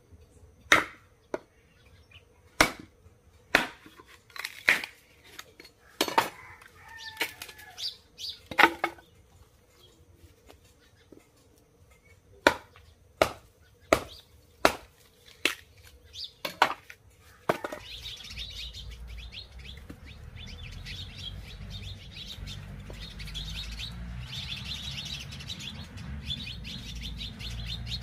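Axe splitting firewood on a tree stump: a series of sharp, irregular chops for the first seventeen seconds or so. After that the chopping stops, and birds chirp over a low, steady background noise.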